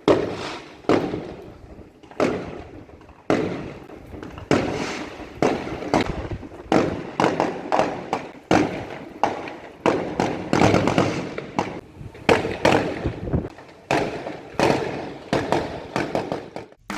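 Fireworks exploding one after another, sharp bangs roughly every half-second to second, each trailing off in a rumbling echo with crackle.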